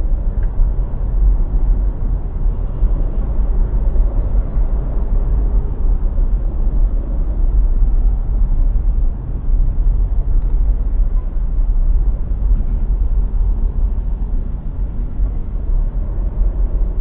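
Steady low rumble of a car driving in traffic, heard from inside its cabin: engine and tyre noise on the road.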